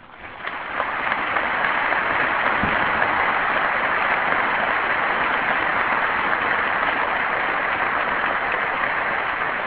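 Audience applauding, swelling up within the first second, holding steady, then easing slightly near the end.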